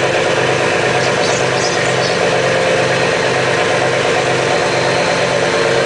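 Purse seiner's engine and deck machinery running steadily: a dense mechanical drone with a low hum that pulses evenly, about two or three beats a second.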